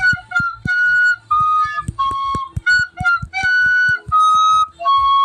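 Music: a flute-like melody of short and held notes over a low, steady drum beat, a short tune played as a meme clip.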